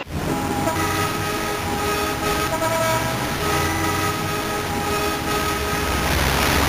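Train sound effect: a train running, with long steady horn-like tones held over a low rumble. It starts abruptly.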